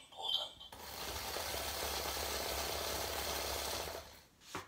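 Timex wacky wake-up alarm clock's shake motor running for about three seconds, a steady rattling buzz as the clock vibrates.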